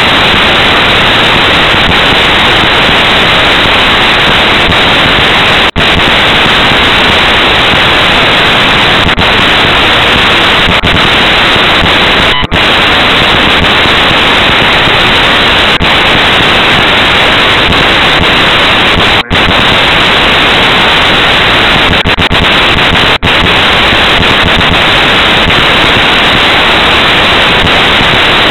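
Loud, steady static hiss from a low-quality recording, broken by four brief dropouts.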